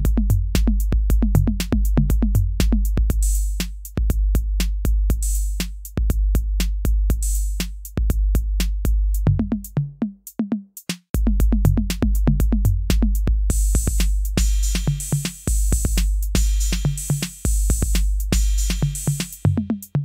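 Electronic background music: a fast, even drum-machine beat over deep bass. It drops out briefly about halfway, then comes back with a bright, hissing layer added on top.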